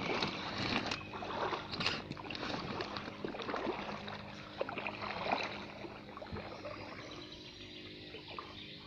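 Kayak paddle dipping and splashing in floodwater, with water trickling off the blade. The strokes are louder in the first few seconds and grow softer toward the end.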